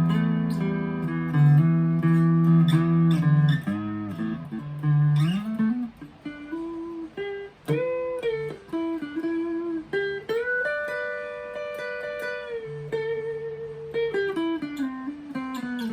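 Chapman ML3 Standard P90 electric guitar played clean through a Vox AV15 amp with no effects, on the neck pickup: ringing chords for the first few seconds, then single-note lines with string bends and long held notes.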